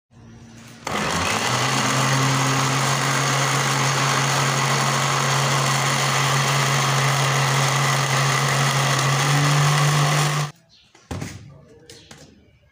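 Electric countertop blender blending a jar of oats and milk: the motor spins up just under a second in, runs steadily with a strong hum for about ten seconds, then is switched off and stops suddenly. A few light knocks follow as the jar and lid are handled.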